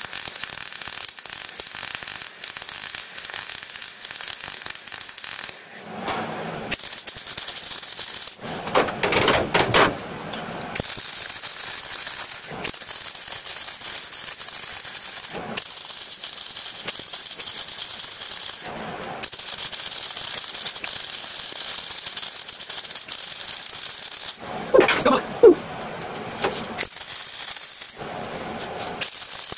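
MIG welder arc crackling and spitting as plug welds are laid through holes in a steel panel, in runs of a few seconds with brief pauses between welds. In two of the pauses, about a third of the way in and near the end, come short pitched sounds, the loudest of them near the end.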